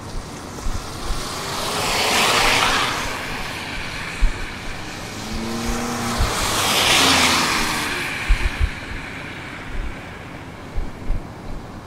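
Two vehicles pass by on the road one after the other, each a rush of tyre and road noise that swells and fades over a few seconds. The first passes a couple of seconds in, the second about halfway through, with a few steady low tones in it.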